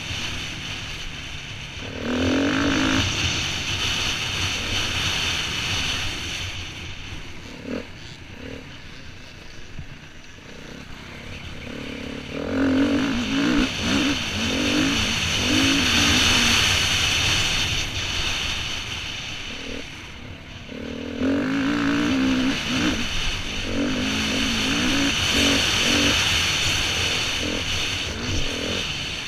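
Enduro dirt bike engine ridden hard over rough ground, its revs climbing and falling as the throttle opens and closes. It gives loud pulls about two seconds in, from about twelve to eighteen seconds and from about twenty-one to twenty-seven seconds, and eases off between them.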